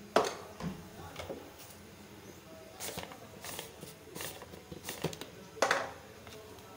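A few sharp clicks and knocks, scattered about half a second to a second apart, the loudest just after the start and near the end.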